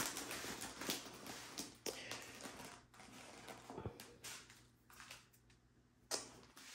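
Rustling and crinkling of the clear plastic film covering a rolled diamond-painting canvas as hands slide and press over it, with a few light taps. It grows quieter toward the end, then a short knock comes about six seconds in.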